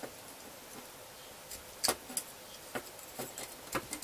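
Small metal bolts and nuts clicking against the bracket plate as fingers line them up and feed them through: about five short, separate clicks, mostly in the second half.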